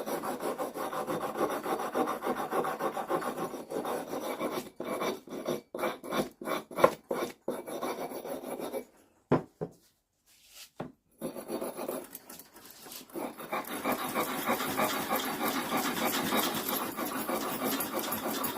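A small wire brush for cleaning copper pipe scrubs the metal head of a tack hammer in quick back-and-forth strokes. It stops for a couple of seconds about halfway through, with a few light knocks, then scrubs steadily again.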